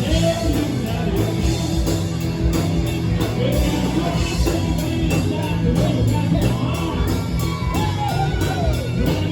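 Live rock band playing a song: steady bass and a drum beat, with a singer's voice over it.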